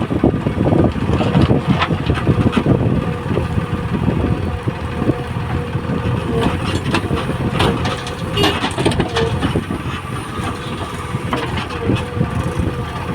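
Diesel engine of a JCB digger running steadily as it loads mud, with scattered knocks and clanks throughout.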